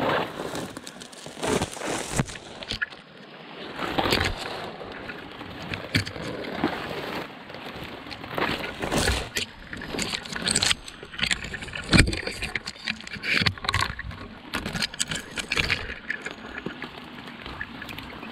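Brush and twigs scraping and snapping against a person pushing through a dense thicket on foot, with irregular sharp cracks of breaking branches throughout; one crack about two-thirds of the way through is the loudest.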